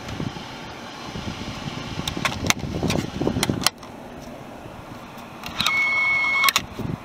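Heater blower of a VW Golf Mk2 pushing air through the dash vents, with several sharp plastic clicks as the vent controls are worked. The air noise drops away suddenly a little over halfway, and near the end a steady high-pitched tone sounds for just under a second.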